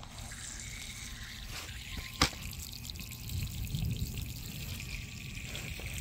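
Water trickling and pouring steadily onto the ground as the enclosure soil is watered, with one sharp click about two seconds in.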